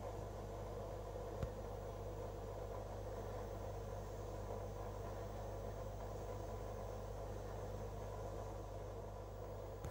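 Aquarium filter pump running: a steady low mains hum with a soft hiss, and a single small click about a second and a half in.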